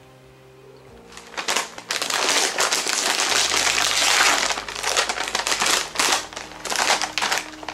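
Chip bag crinkling and crackling as it is handled, starting about a second in and going on in irregular bursts until near the end.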